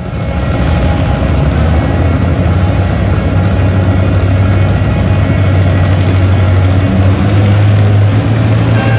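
Antique John Deere tractor engine running hard under load, pulling a weight-transfer sled, with a loud, steady low drone that echoes in an enclosed arena.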